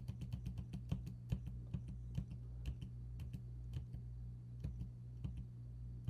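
Computer keyboard keys tapped in quick, uneven succession, about three to four clicks a second, stepping through photo frames one by one. A steady low hum runs underneath.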